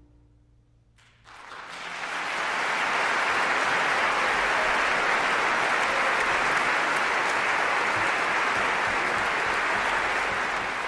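Audience applause that breaks out about a second in and quickly swells to steady, dense clapping.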